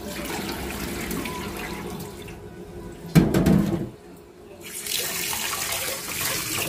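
Cloudy rice-rinse water pouring out of a stainless steel pot into a steel sink, then a loud metal clunk as the pot is set down about three seconds in. Near the end a tap runs into the pot while a hand swirls the rice.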